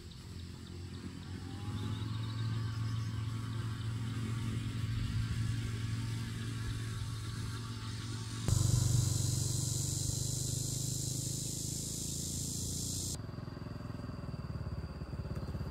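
Small motorcycle engine running steadily, with a low, even hum. The sound changes abruptly twice: it jumps louder with an added hiss a little past halfway, then drops back near the end.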